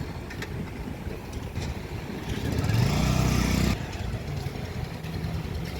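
A motorcycle engine running with a low rumble, rising briefly in pitch about two and a half seconds in and cutting off sharply just over a second later.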